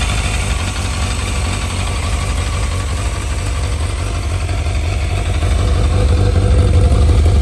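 Yamaha Fazer FZS600's carburetted 600 cc inline-four engine idling steadily, getting a little louder about five and a half seconds in.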